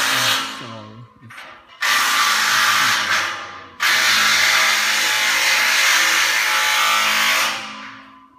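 Power drill run in three bursts by installers fitting sprinkler lines overhead. The first burst stops about half a second in, the second lasts about a second and a half, and the last runs about four seconds before trailing off.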